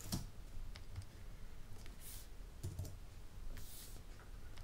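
A few faint clicks of computer controls being worked, with two short soft hisses in the second half, over a low steady hum.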